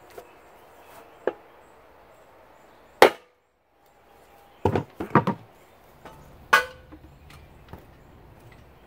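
A hammer striking a wooden block held on a 6L80 transmission's stator support to knock it out of the case: one loud blow about three seconds in, then a quick cluster of knocks around five seconds and another loud knock a little later.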